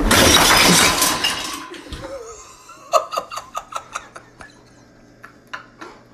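A refrigerator door is yanked open with a loud clattering crash, then a quick run of glass clinks, about five a second, that fade away as bottles and jars rattle in the fridge.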